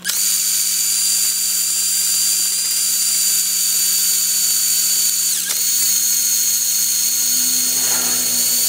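Electric impact driver running at speed, spinning an alternator through a socket on its pulley nut while sandpaper is pressed against the pulley to grind off rust. It makes a steady high whine whose pitch dips briefly and recovers about five and a half seconds in.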